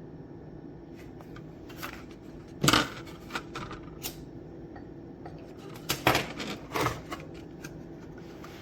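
Handling noise: a scattered run of sharp clicks, knocks and short scrapes, loudest about two and a half seconds in and again around six seconds, over a steady low hum.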